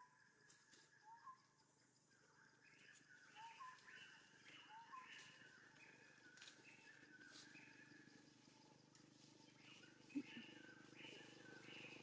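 Faint outdoor ambience with repeated short animal chirps and calls, a few of them short rising squeaks, and a single sharp click near the end.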